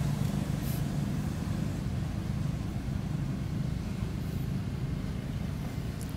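Steady low engine hum.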